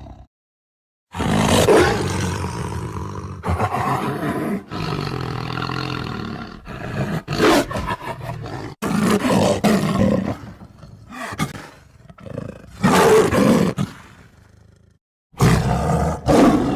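Tiger roars and growls, several separate calls spliced one after another with abrupt cuts and a few brief dead silences between them.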